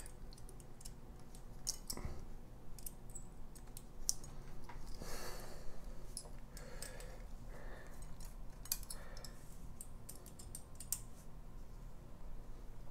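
Faint, irregular small metallic clicks and ticks of an Allen key turning the set screws in a stainless-and-brass shower slide bar's wall brackets as they are tightened.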